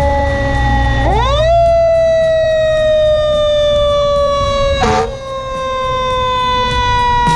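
Fire engine siren wailing over the truck's engine rumble: its pitch sweeps up quickly about a second in, then slowly falls. A brief sharp burst cuts in around five seconds in.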